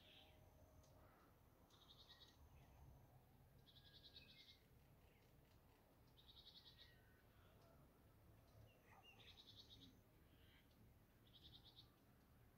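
Quiet rural ambience: a faint, high, fast trill repeats about every two seconds, with a few faint scattered chirps and a low rumble underneath.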